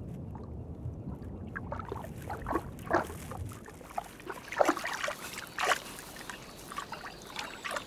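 Water trickling and sloshing in small, irregular splashes and drips, with a few louder splashes about three, four and a half and five and a half seconds in.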